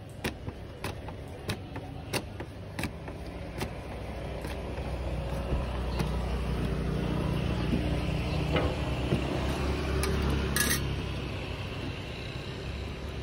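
Roti dough slapped and flung against a steel stall counter as it is stretched thin: sharp slaps about every two-thirds of a second over the first few seconds. Then the low engine rumble of a passing motor vehicle swells, is loudest in the middle, and fades.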